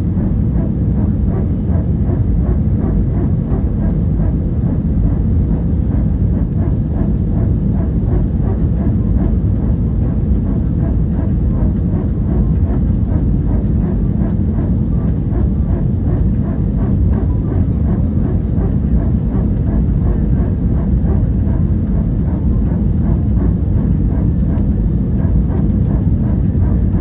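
Airbus A320 cabin noise on final approach with flaps extended: a steady, loud, low rumble of airflow and engines.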